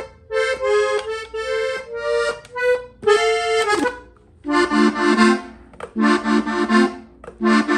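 Hohner Panther diatonic button accordion in F, played solo: a quick phrase of melody notes for about four seconds, a brief pause, then three short, fuller bursts of lower notes.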